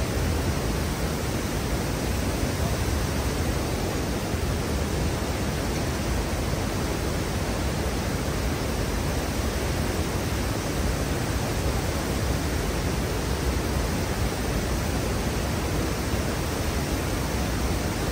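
Steady rushing of water pouring over a river weir, an even unbroken noise with no change.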